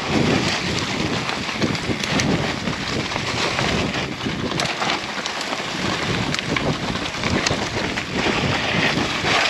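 Mountain bike descending a dirt trail at speed: wind buffeting the camera microphone over tyres rolling through dirt and dry leaves, with scattered clicks and rattles from the bike.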